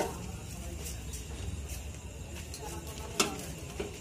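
Hand work on electrical wiring: small rustles and clicks as copper wire ends are twisted together and a pair of pliers is handled, with one sharp click about three seconds in and a softer one just after, over a steady low hum.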